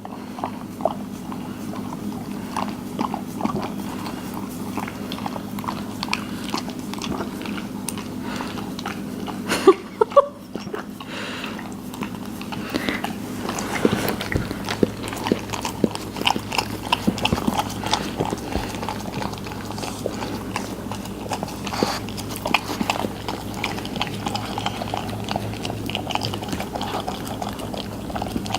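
Pug licking and lapping whipped cream from a cup: a run of quick, wet little licks and smacks over a steady low hum, with a brief louder sound about ten seconds in.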